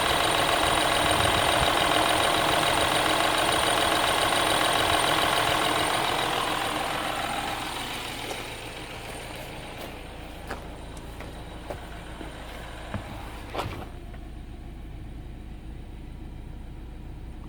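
BMW F20 116i engine running with a steady high whistle over its sound. The whistle is loud for about six seconds, then dies down over the next two seconds to a quieter running sound. A few light clicks follow.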